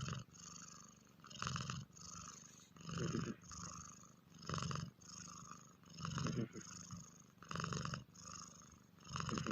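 Cat purring, a rattle on each breath in and out, with a louder breath about every one and a half seconds.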